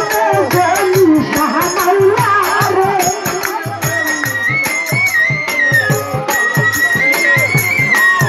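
Live Bengali baul folk music: a woman sings over a steady drumbeat and a rattling percussion for the first few seconds, then the voice drops out for an instrumental interlude, with a high, held melody carried over the same beat.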